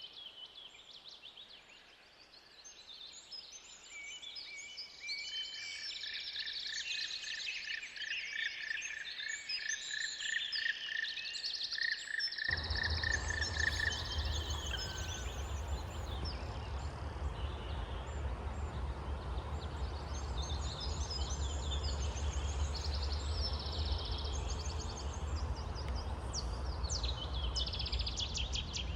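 Small birds chirping and singing, with a fast trill of repeated notes in the first half. About halfway through, a steady low rumble comes in suddenly under the birdsong.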